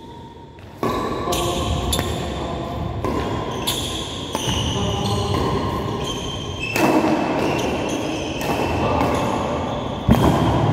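A badminton rally: sharp racket hits on the shuttlecock and shoes squeaking on the court floor, echoing in a large hall. A loud, steady background noise comes in suddenly about a second in and runs under it.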